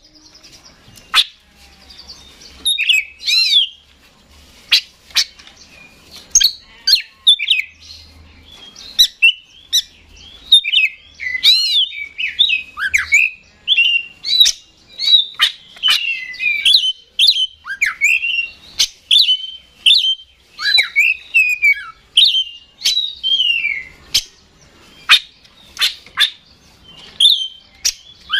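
Oriental magpie-robin singing loudly in a rapid, near-continuous stream of short, varied whistled phrases that rise and fall, mixed with sharp click-like notes. The song gets going a couple of seconds in.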